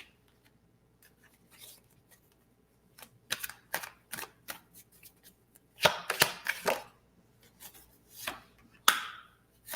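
Tarot cards being handled and shuffled: a series of short snaps and taps, coming in clusters.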